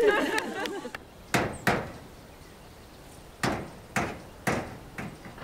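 Hammer blows on an old corrugated iron roof: two quick strikes, then four more about half a second apart.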